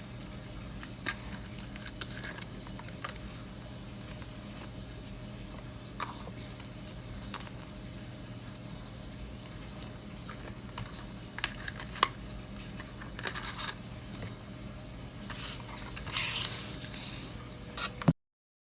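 Scattered light clicks, taps and short scratches of paper being handled, over a steady low hum. The clicks grow busier near the end, and then the sound cuts off abruptly.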